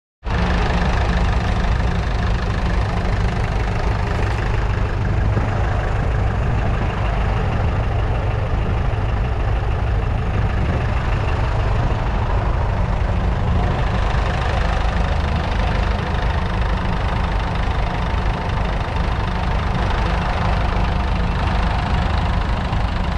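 New Holland T7.225's 6.7-litre six-cylinder diesel engine idling steadily.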